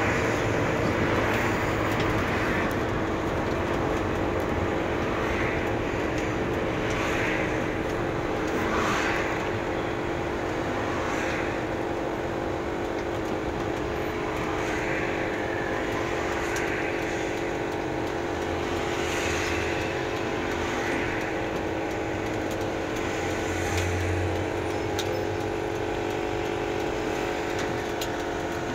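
Engine hum and road noise inside the cabin of a large vehicle, a bus or truck, driving steadily through traffic.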